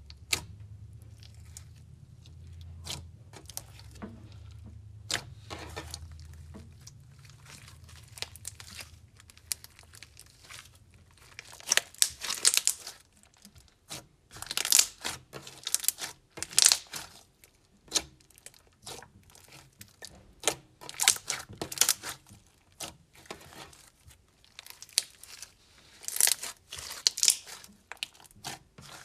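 Slime being squeezed and stretched by hand, giving runs of sharp little crackling pops and clicks. They are sparse at first, then come in dense bursts every second or two from about halfway through.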